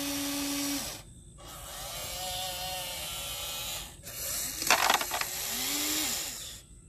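Small electric motors of an RC excavator whining as its grapple swings and opens, the pitch rising and falling with each movement. About five seconds in, rocks clatter as they drop into the toy truck's bed.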